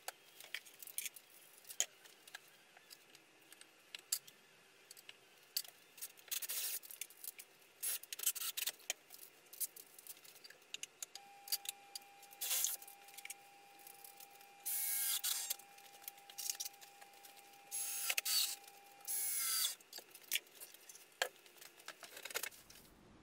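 Makita cordless drill driving screws into softwood timber, running briefly several times, the longest runs near the middle and end, among many knocks and clatters of timber pieces and tools being handled and set down.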